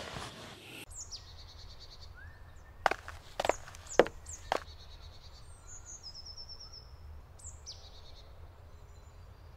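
Small songbirds chirping and trilling in woodland, with four sharp footstep-like thuds between about three and four and a half seconds in.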